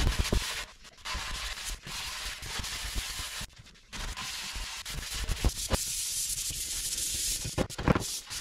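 Hand sanding with sandpaper on a sanding block, strokes rubbing back and forth over the old paint and clear coat of a motorcycle part. The strokes stop briefly about a second in and again near the middle.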